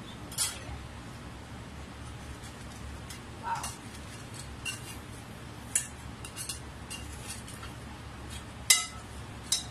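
Metal spoon and tongs clinking in the glass bowl of a turbo broiler as a whole roast chicken is turned over: scattered sharp clinks, the loudest near the end.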